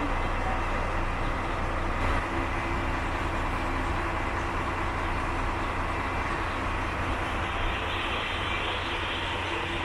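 Diesel engine of a KTR700 railcar idling steadily while the car stands at the platform.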